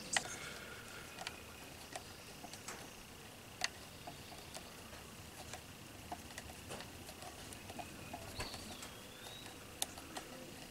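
Faint, scattered light clicks and ticks of a small screwdriver turning screws and fingers handling the plastic arm cover of a GoPro Karma drone. A short whistle-like chirp sounds about eight seconds in.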